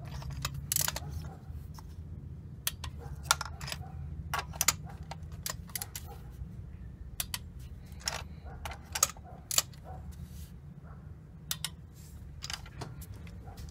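Irregular sharp metallic clicks and clinks of a click-type torque wrench and spark plug socket being seated and worked on the spark plugs, the wrench clicking as a plug reaches its set torque. A steady low hum runs underneath.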